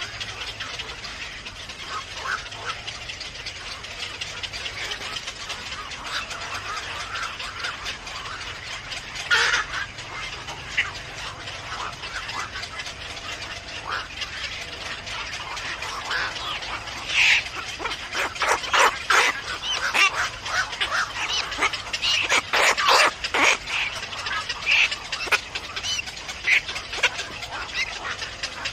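Birds calling: faint scattered short calls over a steady background hiss, then from a little past halfway a run of loud, short, sharp calls in quick succession.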